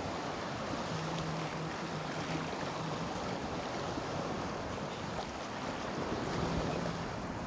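Sea waves washing steadily against a rocky shore, with a faint low hum coming and going.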